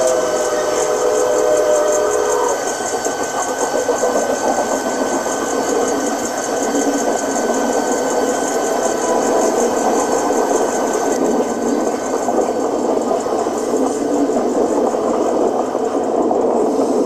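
Model trains running on a club layout. A steam-locomotive whistle of several tones held together sounds for the first two or three seconds, then gives way to a steady mix of locomotive running sound and wheels rolling on the track.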